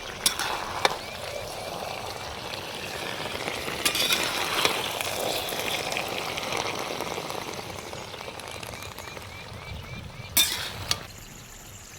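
Biscuit halwa mixture sizzling in a pan as it is stirred, with a spatula clinking sharply against the pan a few times. The sizzling dies down just before the end.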